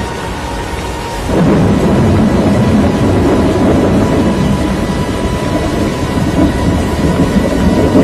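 Storm noise during a tornado: wind rumbling on the microphone along with rain, growing louder about a second in and staying loud.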